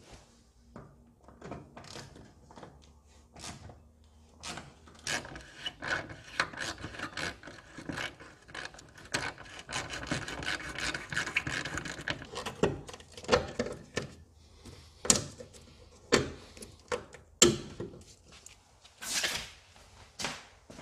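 Hand tool clicking and scraping as rusty fasteners on a car body are worked loose: a dense run of rapid clicks and scrapes through the middle, then a handful of separate, louder knocks and clanks near the end.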